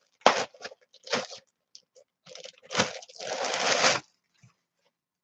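Clear plastic bag crinkling and rustling in several short bursts as it is opened and a hat is pulled out of it. The longest rustle comes about three seconds in and stops about a second later.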